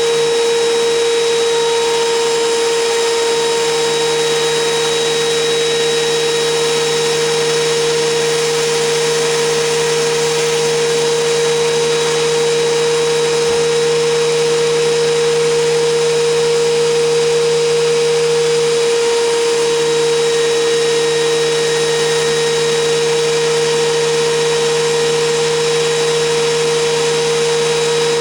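WEN 6552T 13-inch benchtop thickness planer running steadily, its motor and cutterhead giving a loud, even whine over a wide hiss.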